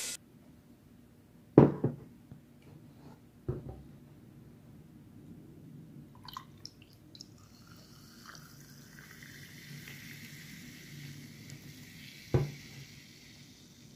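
Liquid being poured into a tall glass of ice, a steady pouring hiss for several seconds from about the middle. A couple of sharp glassy clinks come in the first few seconds and another near the end.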